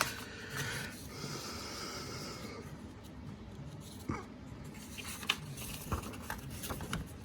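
Quiet handling sounds: a soft breathy hiss early on, then a few light taps and clicks, as of paper and small parts being handled.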